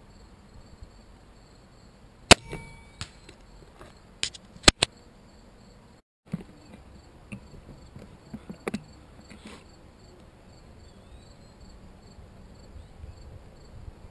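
Crickets chirping steadily, with a few sharp clicks and knocks from the loaded crossbow being readied on its rest, the loudest about two and a half and four and a half seconds in.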